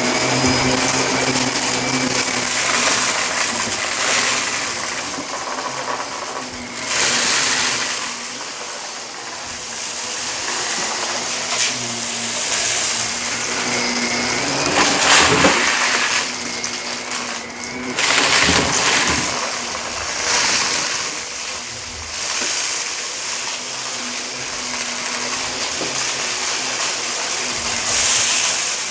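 Shark vacuum cleaner running over carpet: a steady motor hum with the airflow hiss swelling and falling again and again as the head is pushed back and forth and debris is sucked up.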